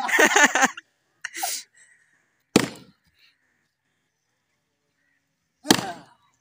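A hand tool striking a dry, weathered tree stump: sharp cracking blows, the two loudest about two and a half and five and a half seconds in, each dying away within half a second.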